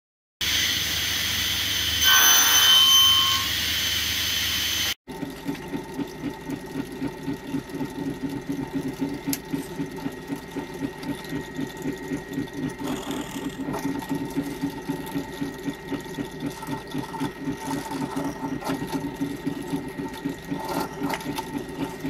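About four seconds of loud steady power-tool noise that cuts off abruptly, then an electric drill in a bench drill stand running steadily with a rapid pulsing rhythm as it bores holes into a wooden block.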